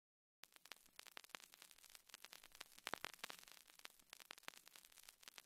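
Faint crackling static: many small irregular clicks and pops, starting about half a second in after dead silence.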